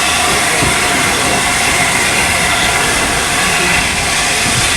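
Steam-hauled train of LNER Peppercorn A1 Tornado running, a steady loud rumble with hiss.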